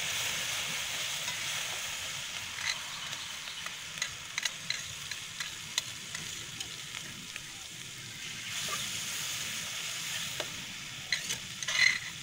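Chili spice paste sizzling in hot oil in a wok over a wood fire, the hiss slowly easing, while a metal spatula clinks and scrapes against the pan. A louder brief clatter of the spatula comes near the end.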